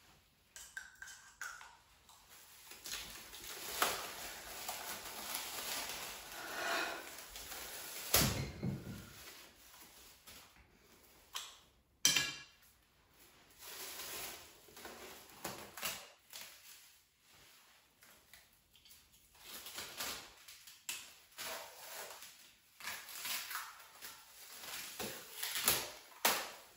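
Plastic cling film crinkling and rustling as it is peeled off a face, pulled from its roll and wrapped around a head. The rustling comes in uneven spells, with two sharp, loud crackles about eight and twelve seconds in.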